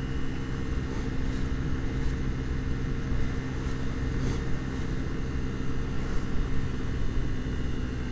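Piaggio Vespa 50 scooter's 50 cc engine running at a steady pitch while cruising, under a steady rush of wind and road noise.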